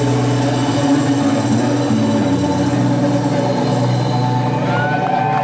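Live rock band with electric guitars and bass holding loud sustained chords as a song rings out. Near the end, gliding high whoops from the crowd begin to come in.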